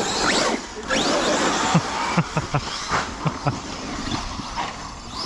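Large brushless electric RC trucks running hard over rough ground, their motors whining up in pitch as they accelerate, with a run of short knocks and thumps from the chassis and tyres in the middle.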